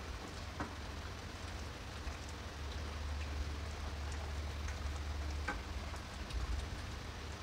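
Fish curry simmering in a small wok on a gas burner: a steady bubbling hiss with a few faint pops, over a low steady hum.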